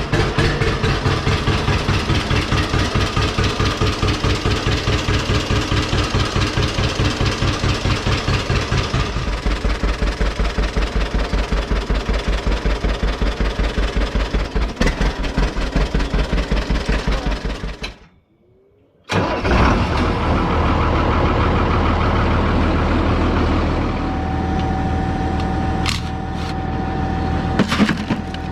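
Older gasoline tractor engine running with an even putting beat, shifting to a lower, heavier beat about nine seconds in. After a brief break, a steadier tractor engine drone follows.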